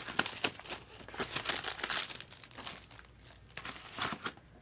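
Plastic wrapping crinkling and rustling as it is handled, an irregular run of small crackles.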